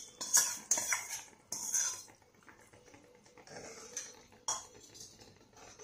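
A steel spoon scrapes and clinks against a glass bowl as thick cooked dal is scooped out into a non-stick kadai. There are several sharp clinks in the first two seconds, then softer scraping and a few light taps as the spoon stirs the pan.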